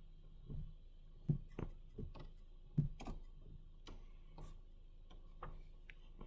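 Automatic car wash spraying soap and water onto the car, heard from inside the cabin as irregular soft knocks and taps on the body and glass, roughly one to two a second over a faint steady wash.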